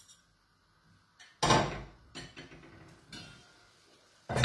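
Kitchen handling clatter. After a moment of quiet there is a loud knock about a second and a half in, a few lighter clinks and knocks of dishes on the counter, then another sharp knock near the end.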